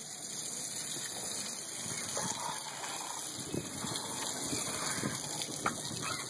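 Water running from a hose: a steady gushing hiss.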